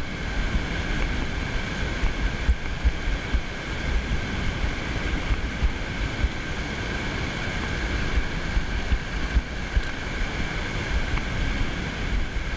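Wind buffeting the microphone with an uneven low rumble, over small waves washing up on a sandy shore.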